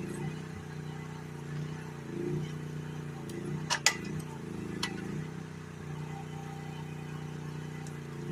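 GroundHog KH14G mini excavator's engine running steadily. About halfway through come two sharp metallic clanks close together, then a lighter one about a second later.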